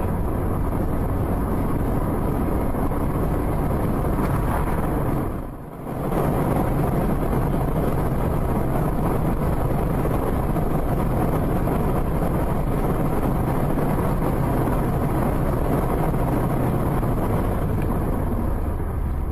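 Steady road, tyre and engine noise of a car driving at speed, picked up inside the cabin by a dashcam, with wind noise on the microphone. The sound dips briefly about five and a half seconds in.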